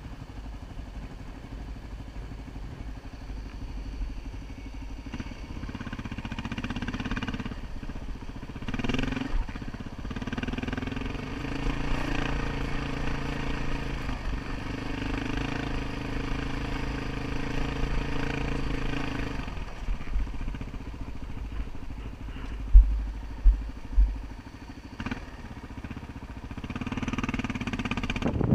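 Dual-sport motorcycle engine running while riding off-road, its revs rising and easing off several times. Three loud, low thumps come a few seconds before the end.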